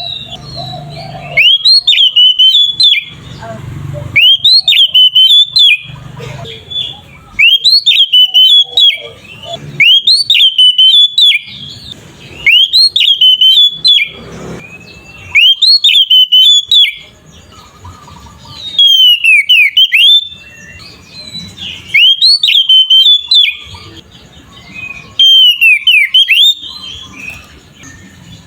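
Oriental magpie-robin (kacer) singing its loud, open 'ngeplong' song: short ringing phrases of quick rising and falling whistled notes, repeated about every two seconds, with softer twittering between them.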